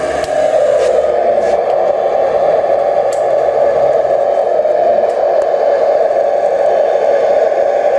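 A radio-controlled model construction machine's motor whirring steadily, with a few light clicks scattered through it.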